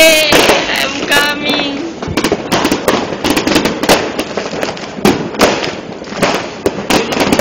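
Fireworks and firecrackers going off together, a dense, irregular run of sharp bangs and crackles.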